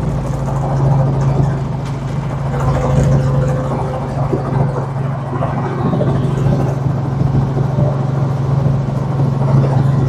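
Helicopter heard from inside the cabin in flight: a steady, loud engine and rotor drone with a constant low hum.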